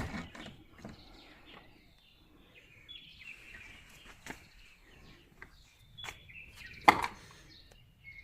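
Faint birds chirping in the background, with a few small clicks and one sharp knock near the end from parts being handled during a washing-machine repair.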